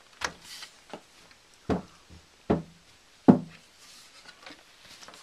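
Thorens TD-125 turntable being turned over by hand: four sharp knocks and thumps of the wooden plinth against the work surface, the last one, a little past halfway, the loudest, with light rustling of handling in between.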